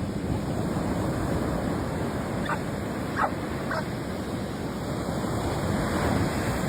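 Surf washing steadily on a shore, with three brief animal calls a little over half a second apart near the middle.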